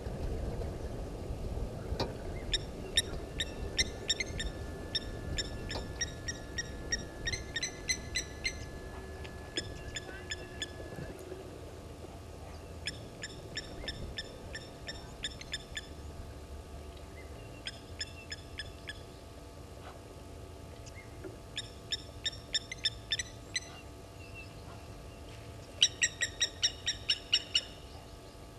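Blacksmith lapwings calling: repeated sharp, metallic 'tink' notes in about five runs of several seconds, the run near the end the loudest and quickest, at about five notes a second.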